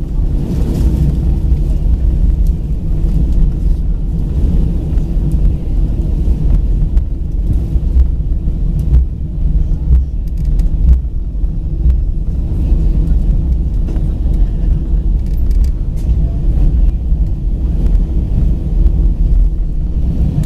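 Airbus A319 jet engines running, heard inside the cabin from a seat over the wing, as a steady loud low rumble, together with the noise of the aircraft rolling along the ground.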